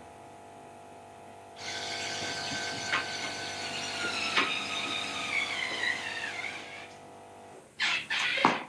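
Electric screw gun driving a screw through a metal plate into a wooden chair-seat frame, its motor whining for about five seconds with the pitch slowly sinking toward the end. A few sharp knocks follow near the end.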